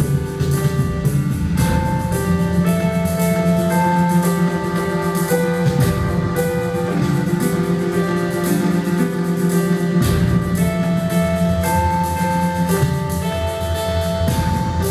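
Live instrumental music played by a duo: a sequence of held melodic notes changing about every second, over a steady low drone, with a light ticking pulse running through. The low drone drops out briefly near the middle and again about two-thirds through.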